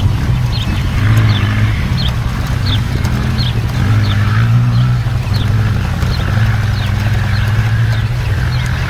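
Bell 222 helicopter running on the ground with its twin turbines and two-bladed main rotor speeding up toward lift-off: a loud, steady low drone with a fast beat, its pitch climbing about a second in and again about four seconds in. Over it, a short high chirp repeats about three times a second.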